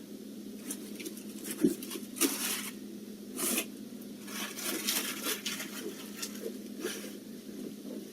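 Scattered rustling and light knocks of household items being handled and moved around, irregular and short, over a faint steady hum.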